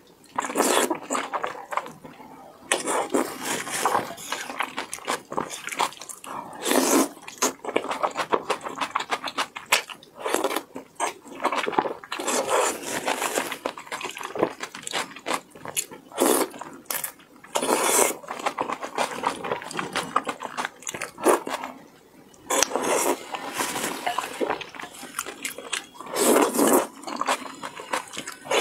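Slurping and chewing of wide, slippery starch-sheet noodles in sauce: repeated wet slurps and mouth smacks in irregular bursts, with short pauses.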